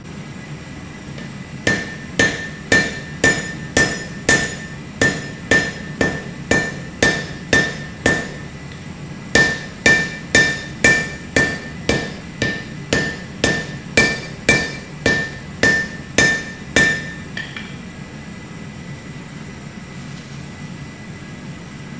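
Hand hammer striking a glowing damascus billet of 1075 and 15N20 steel on an anvil, about two blows a second, each with a short bright metallic ring. The blows pause briefly about eight seconds in, then stop about seventeen seconds in, leaving a steady background hiss.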